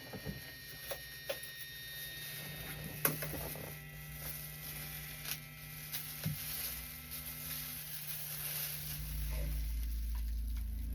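Scattered light taps and clicks over a steady electrical hum, the sharpest click about three seconds in; a deeper hum comes in near the end.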